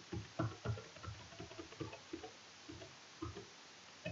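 Computer keyboard keys clicking in an irregular run of faint keystrokes as code is deleted and edited.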